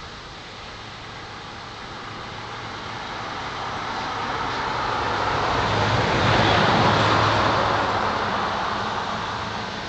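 A vehicle passing by: road noise that swells steadily for about six seconds, is loudest about two thirds of the way through, then fades away.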